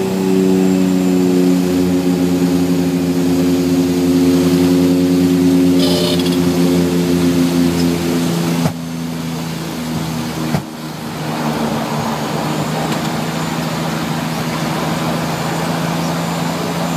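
Small turboprop airliner's engines and propellers heard from inside the cockpit on landing: a loud, steady drone of several tones that eases slightly lower in pitch, then drops sharply with a knock about nine seconds in, around touchdown. A second knock follows and a broader rushing roar takes over as the plane rolls out on the runway.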